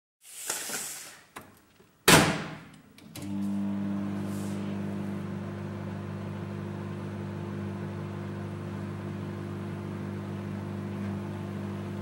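A brief rustle, a click and then a loud sharp clack in the first two seconds. About three seconds in, a microwave oven starts and runs with a steady electrical hum and fan noise while it excites a glowing gas discharge in a flask of low-pressure air.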